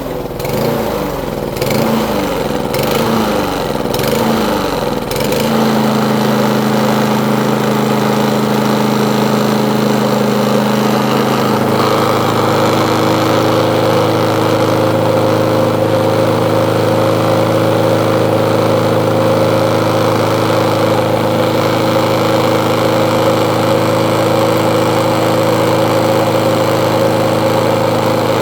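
Small lawn mower engine running, its speed swelling and dipping unevenly for the first five seconds or so, then holding at a steady speed.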